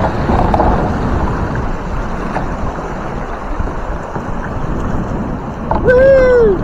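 Steady rushing of fast river water around a paddled boat, with wind buffeting the microphone. Near the end, a short loud squeal that rises and falls in pitch, lasting about half a second.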